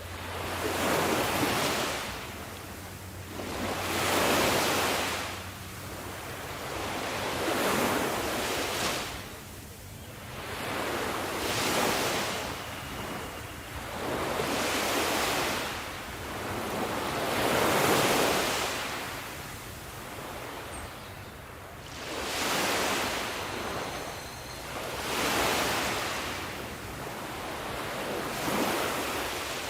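Ocean waves breaking as surf, coming in one after another, each swelling and falling away every three to four seconds.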